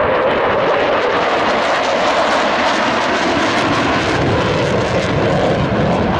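A pair of Dassault Mirage 2000D jets, each with a single SNECMA M53 turbofan, making loud, steady jet noise as they fly a display pass with afterburners lit.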